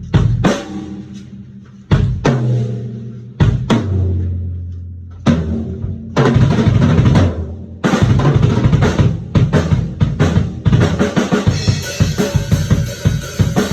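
Acoustic drum kit played to check how its heads sound. It starts with single drum hits left to ring out, one a low tom with a long ring, then from about six seconds breaks into fast fills and groove with cymbals washing in near the end.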